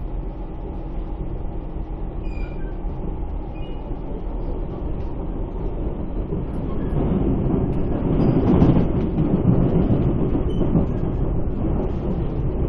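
Inside a Siemens C651 metro car running on its track: steady rumble of wheels and running gear that grows louder from about halfway through, with a burst of clattering as the train passes over the track crossing (crossover points), loudest a little after two-thirds of the way in.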